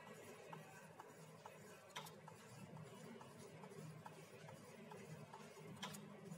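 Near silence with a faint, regular light ticking, about two ticks a second, and two sharper clicks, one about two seconds in and one near the end.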